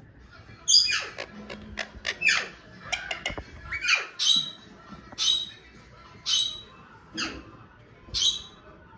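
Parrot squawking: a string of short, sharp, high-pitched calls, about one a second.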